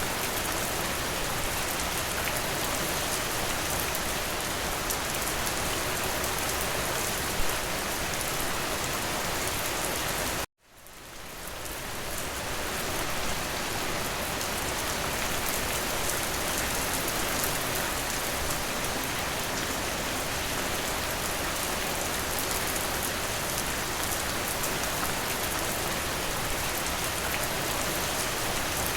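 Steady, dense rain falling on a window, with one sharper tap about seven seconds in. About ten seconds in the sound cuts out abruptly and fades back up over a couple of seconds, like a splice in a looped rain recording.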